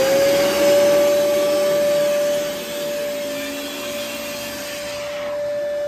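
Year-2000 Fantom Lightning canister vacuum running, a bit loud, its motor settling into a steady high whine over a rushing airflow just after spinning up. The rushing noise drops about two and a half seconds in and again near the end, as the power nozzle cuts in and out, a fault the owner puts down to corroded prongs on the wand.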